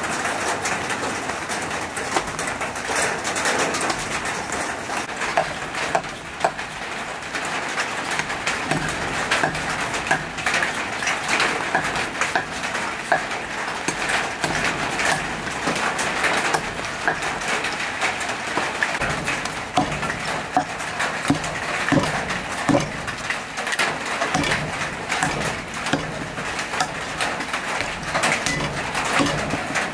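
Steady rain, with a cleaver chopping through raw ribs on a thick wooden chopping block: irregular sharp knocks that come more often from about the middle on.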